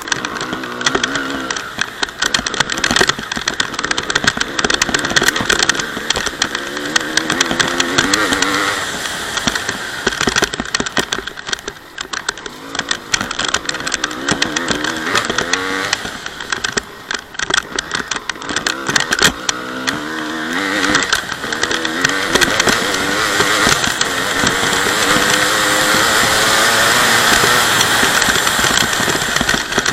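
Honda CR250 single-cylinder two-stroke dirt bike engine being ridden, revving up and dropping back again and again, with a constant crackle of clicks. In the last third it holds high revs longest, and this is the loudest stretch.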